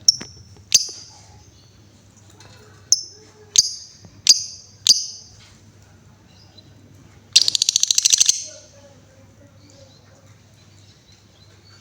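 Female Paskun lovebird calling: six short, sharp high-pitched chirps spread over the first five seconds, then a rapid rattling trill lasting about a second, the lovebird's 'ngekek' call.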